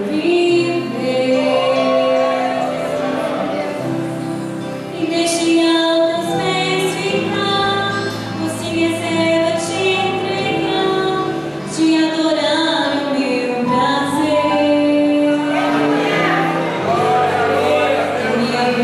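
A group of women singing a hymn together in unison from song sheets, holding long notes.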